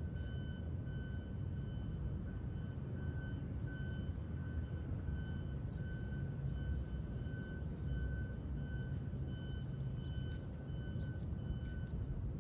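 Electronic beeping: a high steady tone pulsing on and off over and over, stopping near the end, over a steady low rumble with faint bird chirps.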